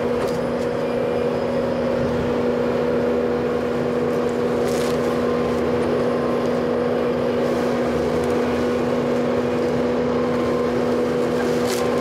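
Skid steer engine and hydraulics running steadily under load with a constant hum, while the hydraulic tree shear cuts sections from a downed tree trunk; a couple of short sharp cracks of wood breaking about five seconds in and near the end.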